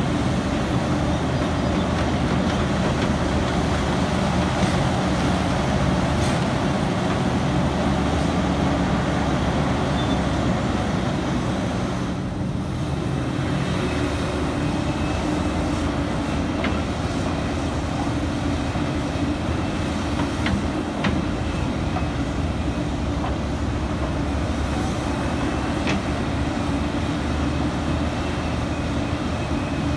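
Liebherr 974 crawler excavator working under load: a steady diesel engine drone with hydraulic noise, and a few sharp knocks as the bucket works the coal.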